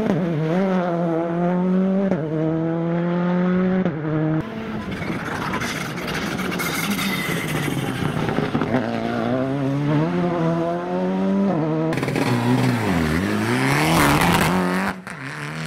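Rally cars' engines revving hard and shifting up through the gears as they pass, over several cuts from car to car. The pitch climbs and drops sharply again and again. Near the end one car's revs dip low and climb back up.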